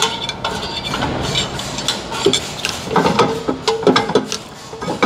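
Flat screwdriver working the parking-brake shoe adjuster star wheel through the access hole in a rear brake rotor, making a run of metallic clicks and scrapes, loosening the drum-in-hat parking-brake shoes. In the second half some of the clinks ring on briefly.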